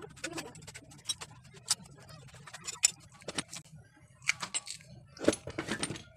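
Metal engine parts clinking and tapping against an open aluminium motorcycle crankcase as they are handled and fitted, a string of sharp, irregular clicks with the loudest a little before the middle and near the end.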